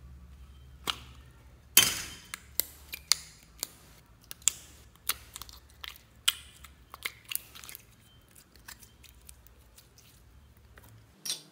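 Glittery slime squeezed by hand out of a pink bear-shaped plastic container, making irregular sharp clicks and crackles. They come thick over the first several seconds, then thin out, with one more near the end.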